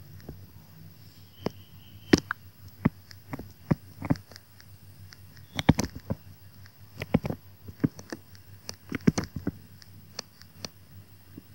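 Stylus tapping and clicking on a tablet screen while handwriting, irregular sharp clicks coming in small clusters. A steady low hum lies underneath.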